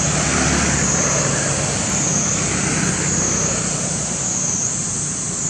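High, droning insect chorus that swells about once a second, over a steady low hum.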